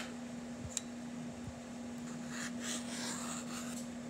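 Rotary cutter rolling through folded quilting fabric along the edge of a curved acrylic ruler: a soft rasping cut about two and a half seconds in, lasting just over a second, over a steady low hum, with a light tap near the start.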